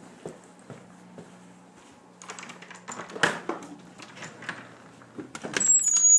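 Footsteps and scattered knocks of someone moving through a house, then a louder clatter with a brief high squeak near the end as a door is opened.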